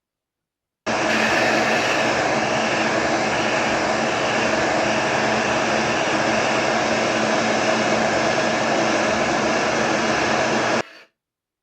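Electric heat gun blowing hot air: a loud, steady, noisy rush from its fan that switches on about a second in and cuts off shortly before the end.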